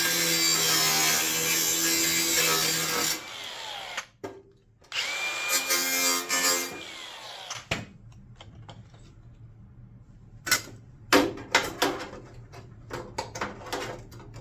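Hand-held electric power tool run twice on a sheet-metal patch panel, each run whining down in pitch as the motor spins to a stop. In the second half there are scattered sharp knocks and clicks.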